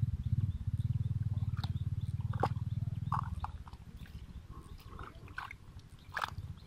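A low, rapidly pulsing rumble that fades out about three seconds in, with scattered splashes and sloshing as hands grope and stir through shallow muddy water.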